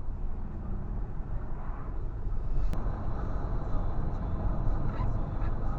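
Car on the road: steady rumble of road and engine noise, with a single light click about halfway through.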